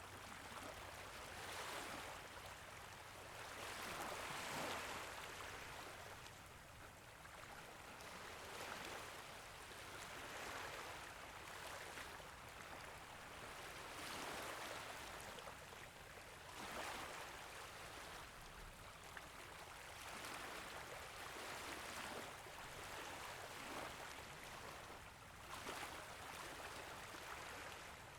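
Small waves gently lapping on a beach: soft washes of water that swell and fade about every two to three seconds, quiet overall.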